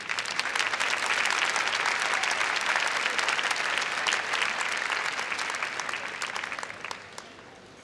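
Audience applauding, starting at once and fading out near the end.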